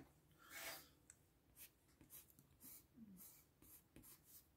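Faint scratching of a water-soluble coloured pencil on paper: short strokes a couple of times a second.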